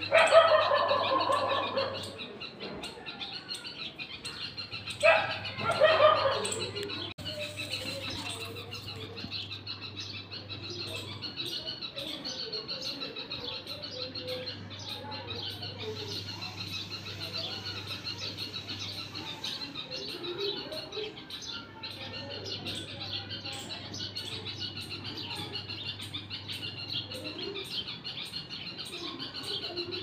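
Many small birds chirping steadily and densely, with a few louder, longer animal calls in the first two seconds and again about five to six seconds in.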